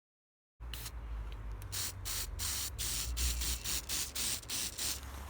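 Aerosol spray paint can hissing in a series of short bursts, starting about half a second in.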